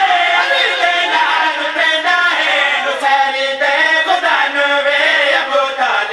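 A group of men chanting a devotional qasida together into a microphone, loud and continuous.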